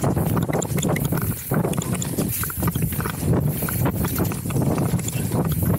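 Trek Session downhill mountain bike rattling over a rocky trail: a steady rumble of tyres on stone with dense, irregular knocks from the frame, chain and suspension.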